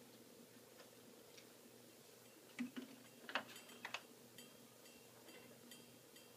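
Faint clicks and knocks as a blue-and-gold macaw shifts about on its wooden perch stand. About two and a half seconds in come three or four sharp clicks, followed by fainter light metallic ticks and tinkles until near the end.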